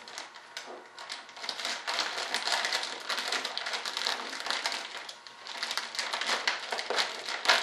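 Clear plastic vacuum-bag film crinkling and crackling irregularly as it is handled and pressed by hand over a resin lay-up.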